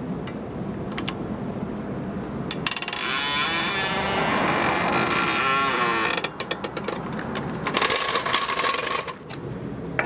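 Hydraulic aluminium floor jack being let down under a car: a loud rushing noise for about three and a half seconds starting about two and a half seconds in, then metallic clicks and rattling from the jack.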